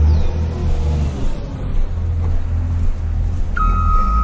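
Steady low rumble of a heavy truck's engine running, with a rushing noise over it. Near the end a truck's reversing alarm starts with one long high beep.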